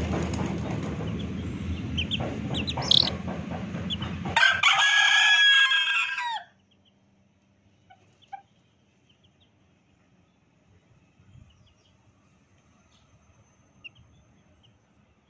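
A loud, steady rumbling noise with a low hum, then a rooster crows once, about two seconds long, its last note falling. The sound then drops suddenly to near quiet, broken by a few faint, brief high chirps.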